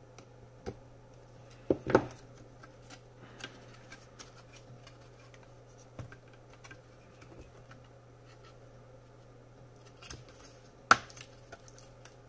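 Flush side cutters snipping through the plastic fasteners that hold the laptop keyboard in: two sharp snaps about two seconds in, faint handling clicks of tools on the metal tray after them, and one more loud click near the end.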